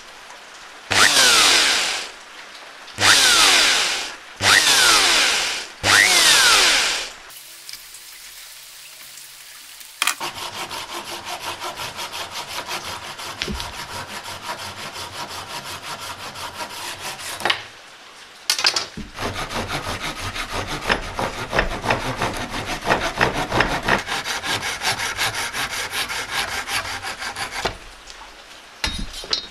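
A drill boring through the steel of an old saw-blade knife tang in four short bursts, the pitch falling in each. Then a hand saw cutting through a block of recycled plastic with quick, even strokes, in two long runs with a brief pause between.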